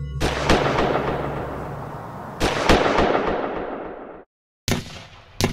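Gunshots, each followed by a long echoing tail: two close together near the start and two more about two seconds later. The sound then cuts out briefly, and further sharp shots come near the end.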